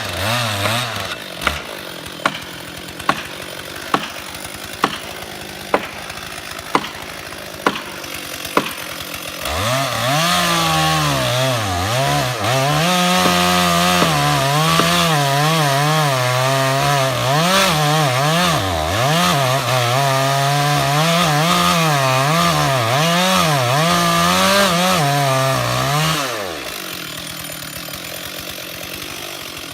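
Two-stroke chainsaw cutting into a tree. For the first nine seconds or so there are sharp ticks about once a second. Then the saw revs up and runs loud under load for about sixteen seconds, its pitch dipping and recovering as the chain bites into the wood. It drops away near the end.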